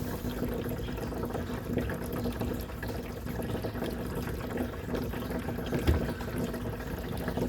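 Water running steadily from a hose into an RV's fresh water tank as it fills. One knock about six seconds in.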